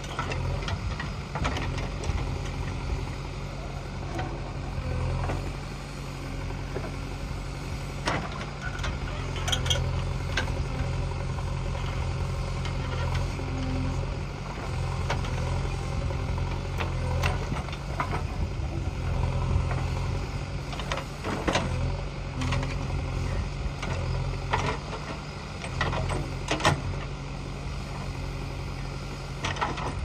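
JCB 3DX backhoe loader's diesel engine running and working under load as the backhoe digs, its hum rising and easing with the hydraulics. Scattered sharp clanks and knocks come from the bucket and arm striking soil and metal.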